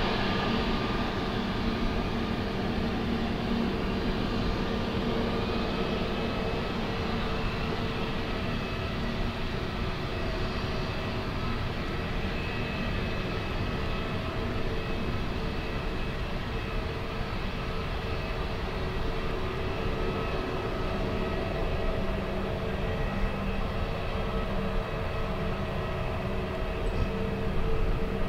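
Jet aircraft engines running steadily: a low rumble with several fixed whining tones on top, holding level throughout.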